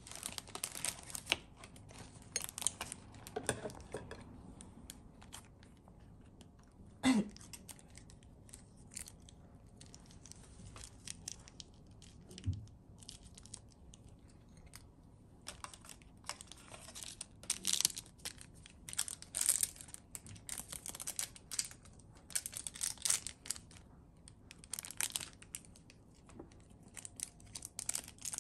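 Plastic food packaging crinkling and tearing in irregular bursts, mixed with small clicks and knocks of handling at a kitchen counter; a brief falling squeak comes about seven seconds in.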